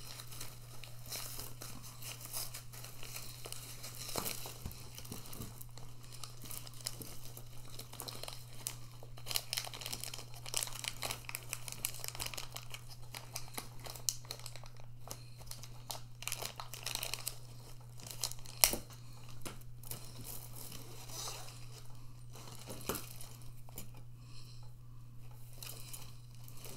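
Plastic packaging crinkling and small clicks as the bead strands of a hanging crystal-bead ornament are untangled by hand, with one sharp click about two-thirds of the way through. A steady low hum runs underneath.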